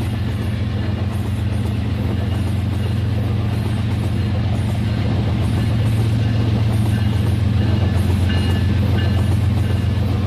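RailKing model train running along its track: a steady hum with a fast, even rattle.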